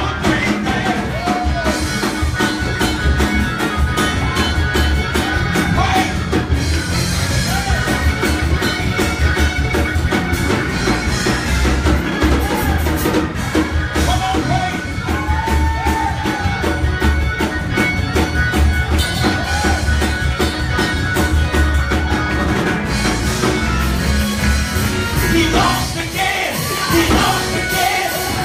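Church praise music: a band with drums and bass playing a steady beat, with singing over it.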